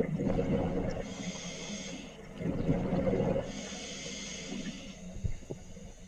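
Scuba diver breathing through a regulator underwater: two breath cycles, each a low bubbling rush of exhaled air followed by a hissing inhalation through the demand valve.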